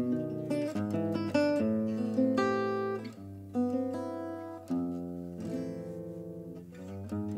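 Solo Selmer-Maccaferri-style acoustic guitar, the gypsy jazz type with a small oval soundhole, playing strummed chords. Each chord rings and fades before the next is struck, with a longer chord left ringing in the second half.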